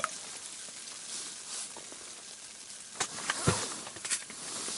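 Ice-fishing rods being handled and set down on the ice at the hole: a few sharp knocks and clatters, the heaviest a dull thud about three and a half seconds in, over a steady hiss.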